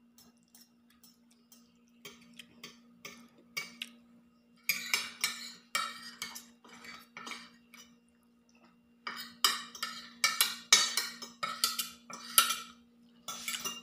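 Metal cutlery clinking and scraping on ceramic plates, in two busy runs of quick clinks, over a faint steady hum.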